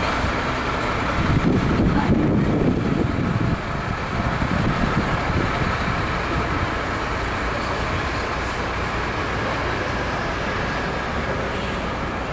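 Blackpool Pantograph tram car 167 running slowly along the street track as it draws up to the stop, a steady running noise of motors and wheels on rails.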